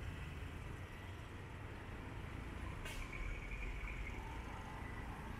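Street traffic running steadily, a low rumble of passing motor vehicles. About three seconds in comes a short sharp hiss, then a faint thin high squeal for about two seconds.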